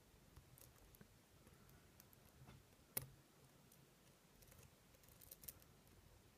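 Faint, scattered metallic clicks of a pick working the pins of a six-pin Schlosser Technik pin-tumbler lock under tension. One sharper click comes about three seconds in, and a short cluster of clicks near the end.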